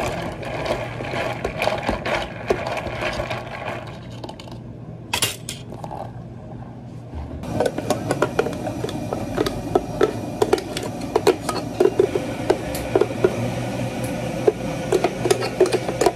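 Café drink-making handling sounds: plastic cup and lid clatter, then thick blended frappe poured from a plastic blender jar into a plastic cup, with many short sharp knocks and scrapes of jar and spatula over a steady machine hum.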